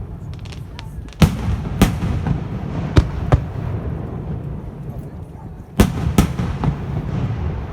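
Fireworks shells bursting close by: a run of sharp bangs, loudest in pairs about a second in and again near the six-second mark, over a continuous low rumble from the display.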